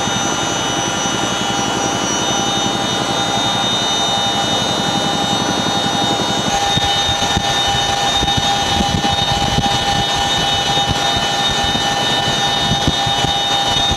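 CH-47 Chinook tandem-rotor helicopter heard from inside the cabin at the open cargo-hook hatch. A steady turbine and transmission whine runs over the fast beat of the rotors, and the low beat grows stronger about six and a half seconds in.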